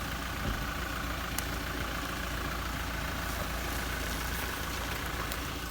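An off-road 4x4 SUV's engine running steadily, with a few faint clicks.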